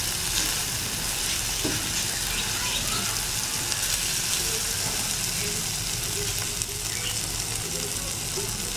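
Minced beef sizzling steadily as it fries on a flat tawa griddle, turned over with a spatula.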